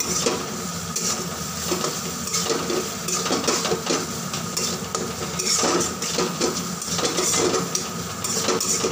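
A spatula scraping and stirring a spice masala around a metal kadai in repeated, irregular strokes over a low sizzle of frying oil, as the onion-garlic masala is fried down (kashano).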